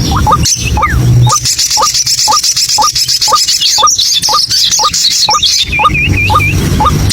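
White-breasted waterhen calling its 'ruak-ruak', a short rising note repeated two to three times a second. A high, rapid chattering sounds over it from about a second in until nearly six seconds in.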